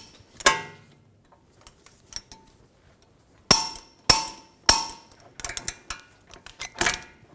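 Click-type torque wrench clicking as it reaches its 116 ft-lb setting on the steering-knuckle bolts: sharp metallic clicks with a brief ring, one about half a second in, three about half a second apart in the middle, then some faint ticks and one more click near the end.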